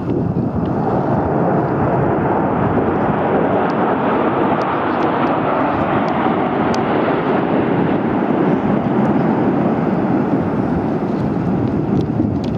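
Military jet fighter flying low overhead, its jet engine roar swelling in the first second, fullest in the middle and easing slightly near the end.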